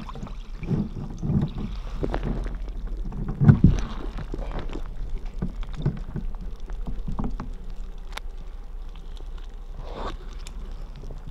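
Rice snack pot handled underwater, heard through a hydrophone: irregular knocks, taps and scrapes as the pot is tipped, turned and shaken out, with a louder thump about three and a half seconds in.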